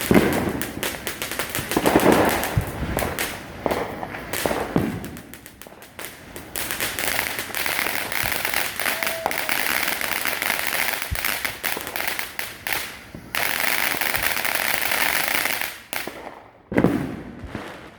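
Firework fountains spraying sparks: rapid crackling at first, then a steady hiss thick with crackle that breaks briefly and cuts off sharply about sixteen seconds in.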